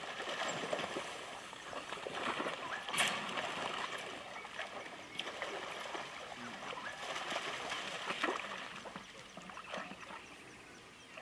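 Water splashing and sloshing in irregular bursts as a pack of African wild dogs struggles with an impala in shallow water, fading as the animals reach dry ground near the end.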